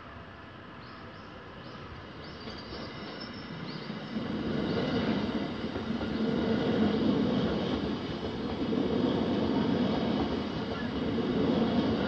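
Passing train, an E657 series limited express electric multiple unit on the JR Joban Line: its running noise grows from about two seconds in, becomes loud about four seconds in and stays loud as the carriages roll by.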